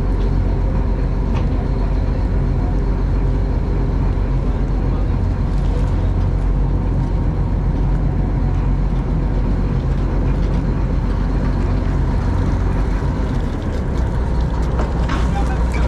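Fishing boat's engine running steadily at a constant speed, a low unbroken drone.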